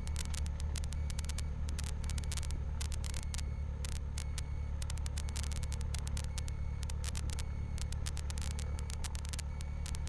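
Cessna Skyhawk's piston engine running steadily at low power on the ground, propeller turning, heard from inside the cockpit as a steady low hum. Frequent irregular crackling clicks run over it.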